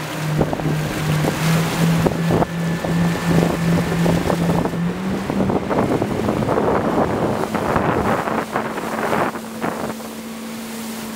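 Motorboat engine running with a steady hum that steps up in pitch about halfway through, as the boat speeds up. Wind buffets the microphone and water splashes throughout.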